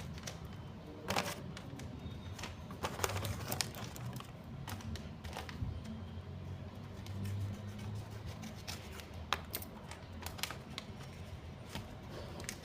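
Scattered crinkles, taps and rustles of hands opening and handling small paper packaging, over a low steady hum.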